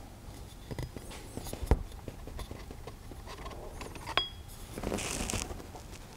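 Handling sounds as an FX Crown air rifle's barrel is slid out of the action: scattered small metallic clicks and scrapes. There is a sharp click a couple of seconds in, a click with a brief ring about four seconds in, and a short scraping rustle just after five seconds, as the freed barrel is laid down.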